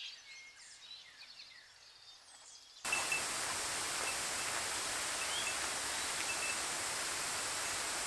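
Faint birds chirping, then about three seconds in a sudden switch to a steady, even rush of running water with a few faint bird calls above it.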